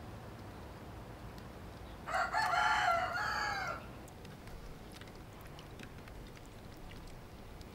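A rooster crowing once, about two seconds in: a single call of under two seconds that drops in pitch at the end.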